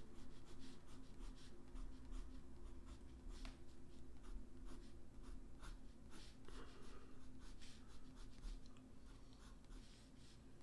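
Blue coloured pencil scratching on paper in many quick, short, irregular strokes.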